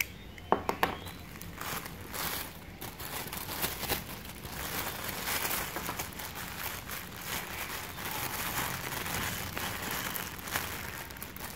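Thin plastic bag crinkling and rustling as hands handle and crumple it, with a few sharp clicks about half a second in.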